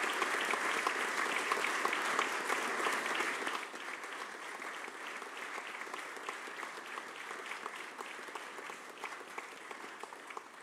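Banquet guests applauding: many hands clapping together, loud at first, dropping after about three and a half seconds and then slowly dying away.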